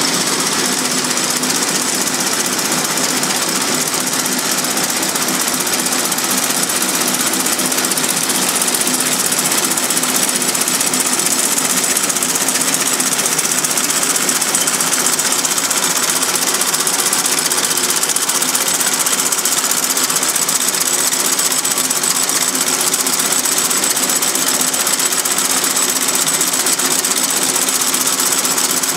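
Warner & Swasey servo pindrafter running at a steady working speed as it drafts wool sliver: a fast, even mechanical clatter from the pin head's bars, with no change in pace.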